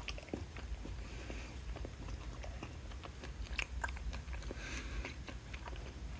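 A person chewing a mouthful of soft-baked maple nut breakfast bar close to the microphone: faint, irregular wet mouth clicks.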